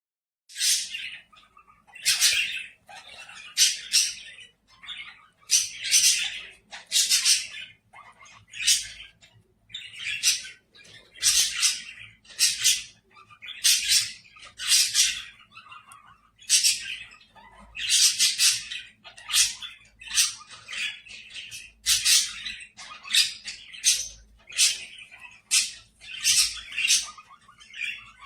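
Pet parrot squawking over and over, short harsh calls coming about once a second.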